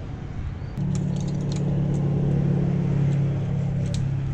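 A road vehicle's engine hums steadily at one unchanging pitch, coming in about a second in. Over it are a few light clicks and rustles.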